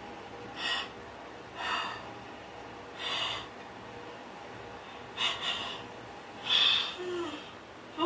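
A person breathing in short, sharp puffs: five brief breaths at uneven intervals, the second-to-last the loudest.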